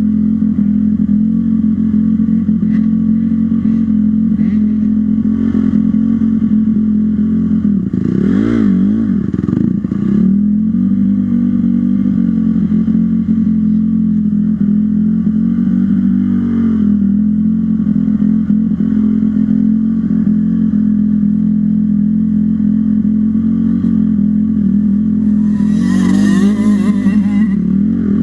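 Off-road dirt bike engine running steadily while being ridden. Its pitch dips and climbs back about eight seconds in and again around sixteen seconds, as the throttle is rolled off and on. Near the end a rush of hissing noise lasts about two seconds.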